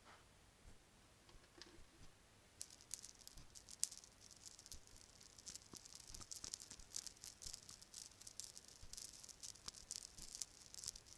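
Bracelets jangling and clicking together: a few light clicks at first, then from about two and a half seconds in a quick, continuous rattle of small hard pieces.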